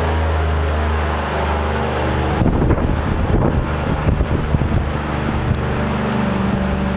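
Airboat engine and propeller running steadily with a loud, even drone. From about two and a half seconds in, a rough, uneven rumbling joins it for about three seconds, then the steady drone carries on alone.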